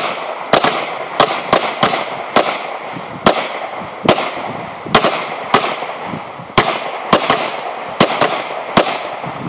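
Pistols firing from several shooters as they advance on the targets: an irregular string of some seventeen sharp shots, sometimes two in quick succession, each with a short ring-out.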